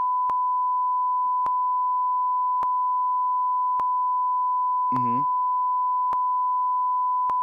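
Censor bleep covering a spoken spoiler: one steady, high, pure beep tone at a constant level, with a faint click a little more than once a second. A brief bit of voice shows through about five seconds in.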